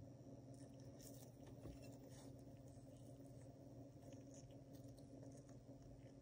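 Near silence: a faint steady hum, with a few soft, scattered scratchy rustles from gloved fingers handling a silver coin.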